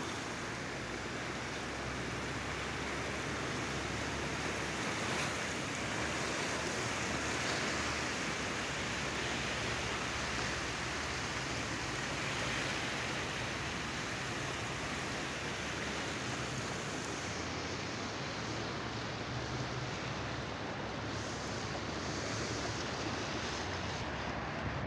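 Fast, silt-laden Gilgit River rushing past a concrete embankment: a steady, unbroken noise of turbulent water and breaking standing waves.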